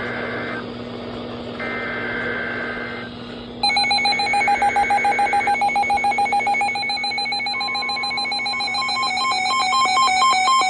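NOAA Weather Radio SAME data bursts through receiver hiss: three harsh two-tone digital screeches of one and a half to two seconds each, about a second apart, the coded header that opens a new warning. About three and a half seconds in, a much louder electronic beeping tune with pulsing, stepping notes cuts in over the last burst and keeps going.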